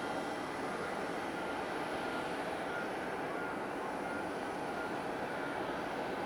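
Jet engines of a Boeing 737-800 airliner: a steady, even rush of engine noise with a faint high whine held over it.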